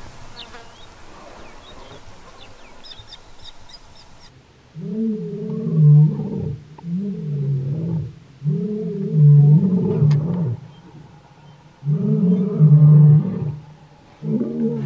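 Lion roaring: a run of five deep, loud roars of one to two seconds each with short pauses between, starting about five seconds in.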